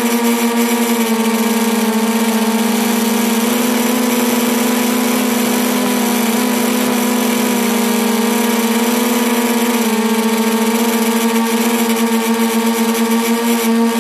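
V-tail RC model plane's motor and propeller, heard from the onboard camera, running in a steady drone over a hiss during flight. The pitch shifts slightly about ten seconds in.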